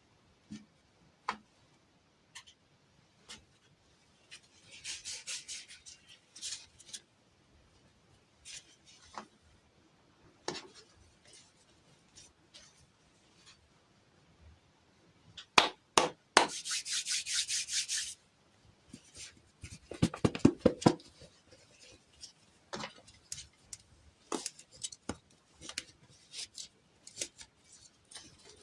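Hand-handling noise from small objects: scattered light taps and clicks, with a few short bursts of rubbing or rustling, the longest about two-thirds of the way through.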